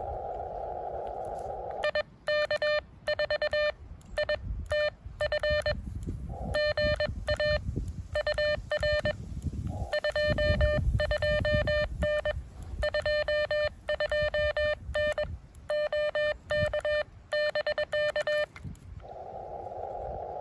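Amateur radio transceiver sending Morse code: a steady mid-pitched sidetone keyed on and off in CW characters for about seventeen seconds, with low knocks underneath. The receiver's band hiss, heard through a narrow CW filter, cuts out while the key is down and returns at the start and end.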